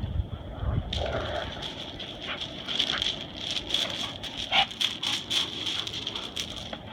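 Dogs running in a chase game, their paws crunching and scuffling on gravel in a quick irregular run of sharp crunches, over a steady high-pitched whine in the background.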